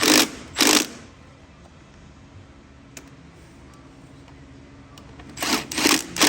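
Ratchet wrench clicking through short back-and-forth strokes as the two 10 mm bolts holding a new EGR valve are tightened: two strokes at the start, then four more near the end.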